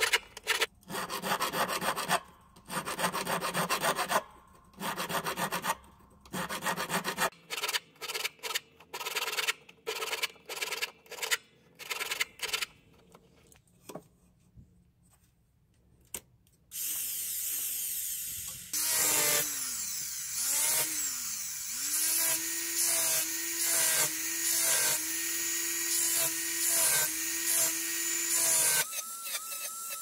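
A hand file rasping in repeated strokes on a silver tube held against a wooden bench pin, long strokes at first, then shorter, quicker ones. After a short pause, a rotary handpiece with a sanding drum starts up with a steady high whine about two-thirds of the way in. Its pitch dips and recovers each time the drum bites into the silver.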